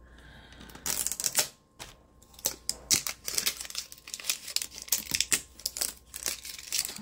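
Clear plastic wrapping crinkling and tearing as it is handled and pulled off a cosmetics case, in irregular crackles that begin about a second in.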